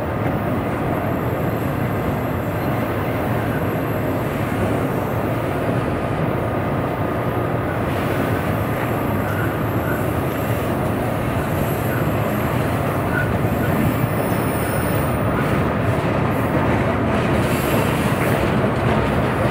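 Train cars rolling past, steel wheels on rail making a steady loud noise, with a faint thin wheel squeal above it and some clicks in the later part.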